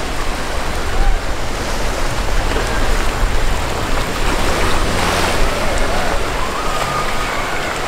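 Rough inlet water splashing and churning around a small powerboat, with wind buffeting the microphone.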